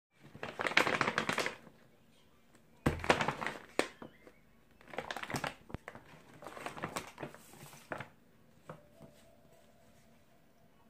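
Paper carrier bag rustling and crinkling in four bursts as a hand rummages inside it and lifts a phone box out, with a few sharp clicks among them.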